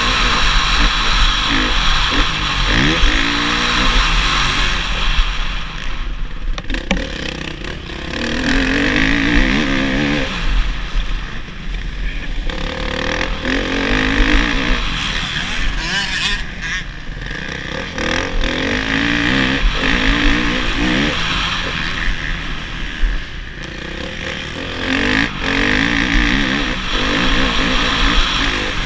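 Motocross bike engine heard from the rider's helmet, revving up hard and backing off again and again, with short throttle-off dips every few seconds.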